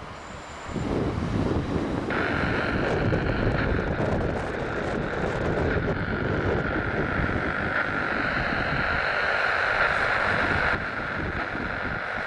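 Wind buffeting the microphone as a rumbling noise, with a band of airband radio hiss that cuts in about two seconds in and cuts out near eleven seconds, between transmissions.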